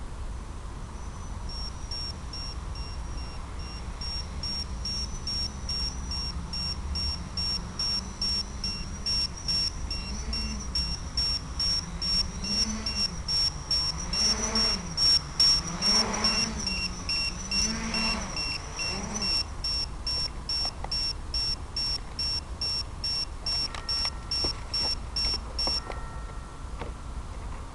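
Electronic beeper of an RC/FPV model setup sounding short high beeps at about two a second, then stopping a little before the end. A low wavering tone rises and falls underneath from about ten to nineteen seconds in.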